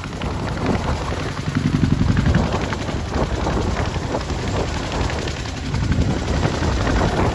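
Boeing CH-47 Chinook tandem-rotor helicopter hovering low as it comes in to land, its two rotors making a loud, rapid, steady chop.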